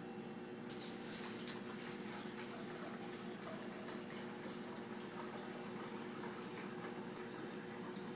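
Water being poured from a glass measuring cup into an empty plastic bottle: a steady trickling splash that starts with a couple of clicks about a second in and keeps on running.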